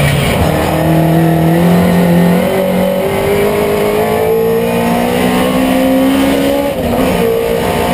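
Mini Miglia race car's 1460cc four-cylinder engine with a KAD 16-valve head, heard from inside the cabin under full acceleration. The revs climb slowly and steadily, dip briefly near the end, then climb again.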